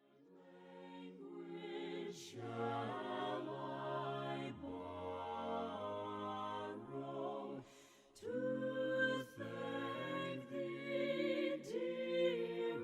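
A slow hymn sung a cappella by a choir in several parts, with long held notes and brief pauses between phrases.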